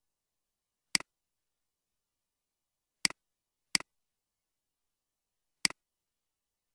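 Four sharp computer mouse clicks, each a quick double click of button press and release, about one, three, just under four and nearly six seconds in.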